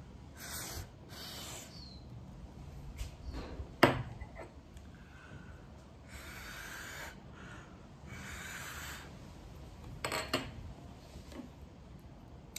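Breath blown through a metal straw onto wet acrylic pour paint: several airy blows of half a second to a second each, with a sharp click about four seconds in.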